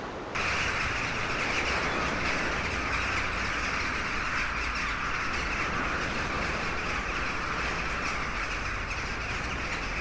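A large seabird colony calling all at once in a continuous, dense din of squawks, starting abruptly just after the beginning, over a low rumble of surf.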